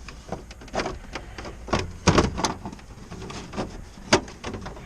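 Van interior trim pieces being handled and pressed back into place: irregular clicks and knocks, the loudest cluster about two seconds in and a sharp click near the end.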